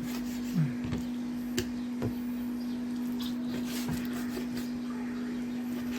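A steady low hum with a few soft knocks and taps scattered through it, from a knife cutting raw chicken thighs into cubes on a cutting board.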